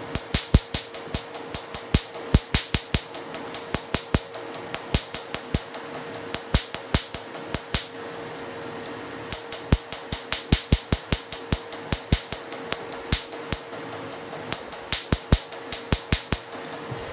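Q-switched Nd:YAG laser (Lumenis M22) firing on tattooed skin: a rapid, even train of sharp snaps, about five a second, each one a laser pulse striking the ink. The firing pauses for a little over a second before the middle, over a steady hum.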